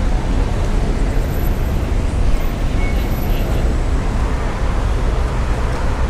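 Steady low rumble of background noise, with no single clear source and no distinct events.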